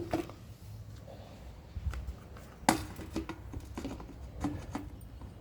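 Light knocks and clicks of an electric kettle and its parts being handled and set on the base stand, with a sharper knock near the middle.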